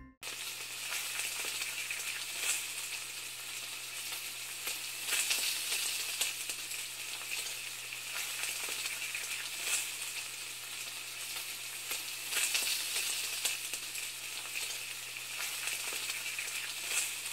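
Steady sizzling hiss of frying, dotted with scattered crackles and a faint low hum underneath, starting abruptly just after the music cuts off.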